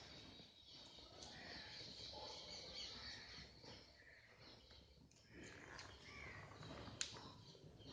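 Quiet outdoor ambience with faint bird calls, and one sharp click about seven seconds in.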